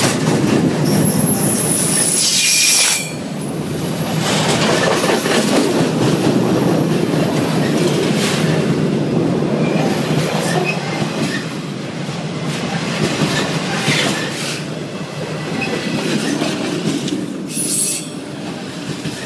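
Loud freight train of autorack cars passing close by, steel wheels rumbling and clacking over the rails without a break. Brief high-pitched wheel squeals come near the start and again near the end.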